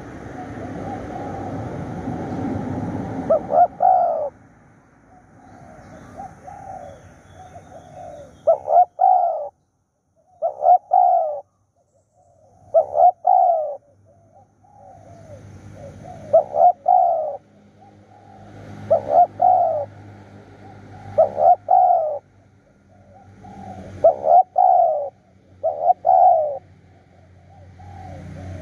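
Spotted dove cooing: a short phrase of several coos, repeated about every two to three seconds. A low rumble fills the first few seconds before fading.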